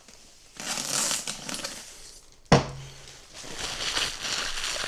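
Protective plastic film or a sticker being peeled off and crinkled in two stretches, with one sharp knock about two and a half seconds in.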